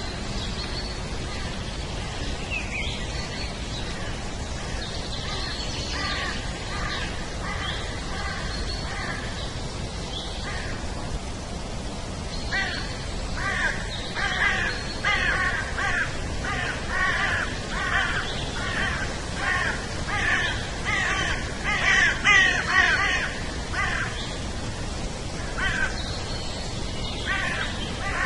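Outdoor nature ambience: a steady background hiss with scattered bird calls. From about halfway through, birds give a long run of harsh, repeated calls, about one and a half a second, loudest near the end before easing off.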